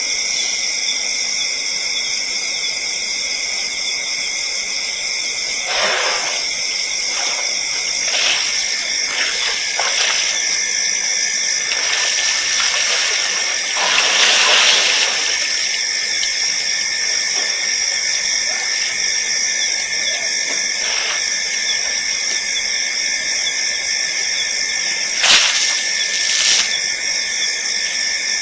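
Steady high-pitched hiss of night ambience at an elephant waterhole, with a few brief louder noises, the longest about halfway through.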